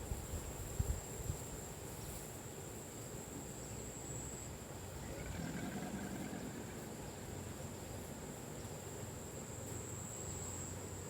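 Steady, high-pitched insect chirring holding one tone, over a quiet outdoor background. A few low bumps hit the microphone in the first second or so.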